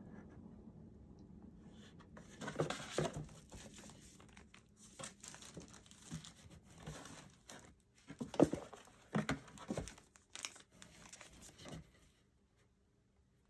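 Packaging being handled and opened: irregular crinkling and rustling with scattered sharp knocks, loudest in two spells, stopping near the end.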